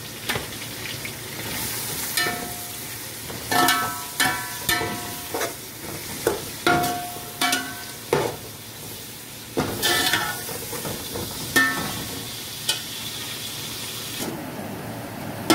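Sliced onions sizzling in hot oil in an aluminium pot while a slotted metal spoon stirs them. The spoon scrapes and knocks against the pot again and again, each knock giving a short metallic ring.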